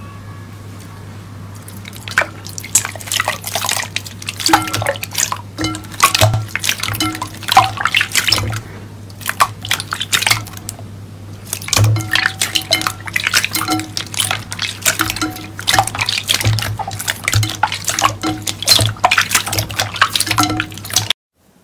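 Hands sloshing and splashing through watery yellow liquid in a glass bowl: quick, irregular wet splashes and drips that begin about two seconds in and pause briefly near the middle, over a steady low hum. The sound cuts off just before the end.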